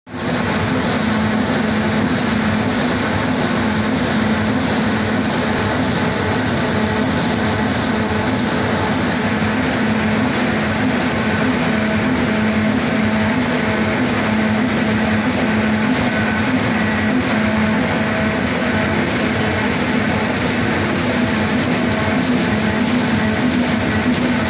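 PP woven bag roll-to-roll printing machine running at speed, a steady mechanical clatter of rollers and drive with a constant low hum.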